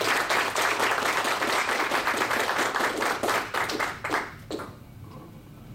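A small audience applauding: many hands clapping together, dying away about four seconds in with a few last separate claps.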